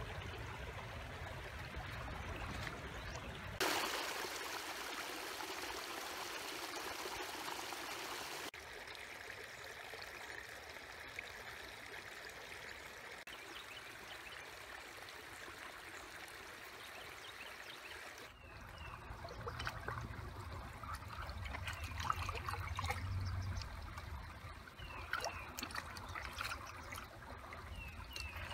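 Shallow rocky stream trickling and babbling over stones, louder and closer for a few seconds in the first part. In the later part there is a low rumble with scattered splashes and clicks as a plastic cup is dipped into the water.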